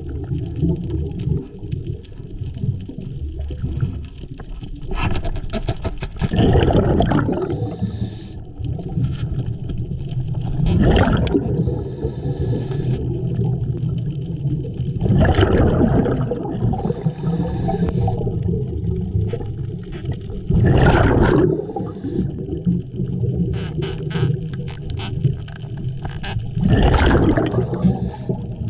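A scuba diver's regulator breathing underwater: bubbling exhalations swell up about every five seconds over a steady low rumble of water.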